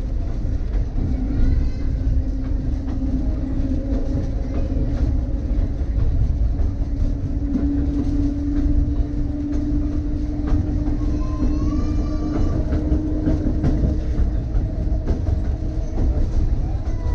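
Key System 187 electric railcar running along the track: a steady rumble with a constant hum, and wheels clicking over the rail joints.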